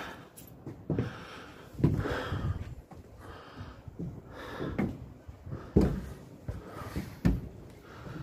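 A person breathing heavily and audibly through the nose, with irregular sharp knocks and thumps from footsteps and handling on the timber bell frame. No bell is ringing.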